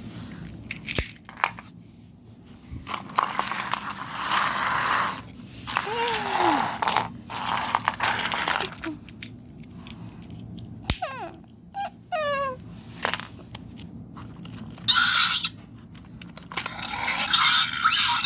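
Baby-raptor-style squeaky chirps that fall in pitch, one about six seconds in and a quick run of them around the middle, with stretches of rustling and crinkling from toys being handled between them.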